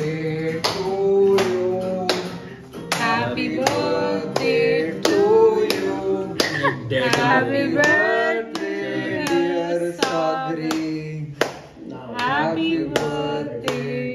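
Singing over a steady beat, with sharp claps about twice a second.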